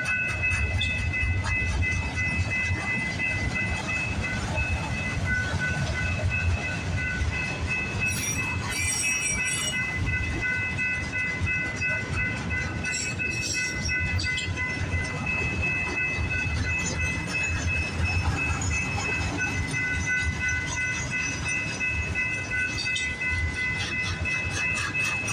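Freight train cars rolling past slowly: a steady low rumble with a sustained high-pitched wheel squeal, and a few clicks from the wheels over the rail joints.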